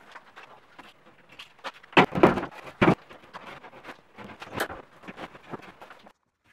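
Plasterboard sheet knocking and scraping against metal drywall studs as it is stood up and pushed into place, with shuffling footsteps; the loudest knocks come about two and three seconds in. The sound cuts off abruptly shortly before the end.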